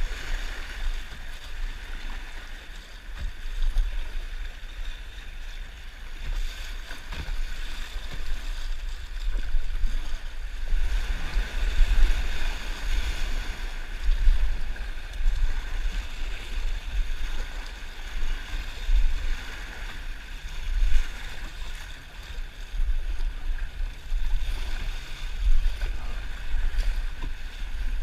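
Whitewater of a rain-swollen river rushing and splashing around a kayak running rapids, with low, uneven buffeting on the microphone.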